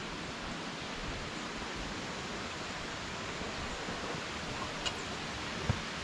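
Steady rushing of a waterfall and rocky stream, an even hiss, with a couple of soft knocks near the end, likely footsteps on the dirt trail.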